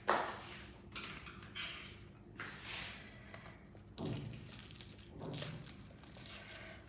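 Plastic cling film rustling and crinkling in several short spells as it is handled over a cutting board and cut from its roll with kitchen scissors.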